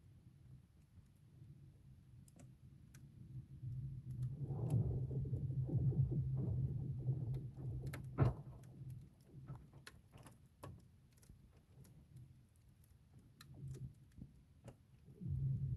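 Lake Superior ice forming and shifting: a low, droning groan swells up and fades out over a few seconds, with sharp cracks and pings scattered throughout and one loud crack about eight seconds in.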